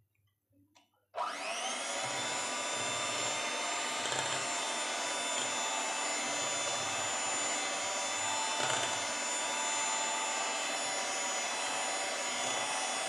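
Electric hand mixer switched on about a second in, its motor whine spinning up quickly, then running steadily as the beaters whir through eggs and sugar in a glass bowl.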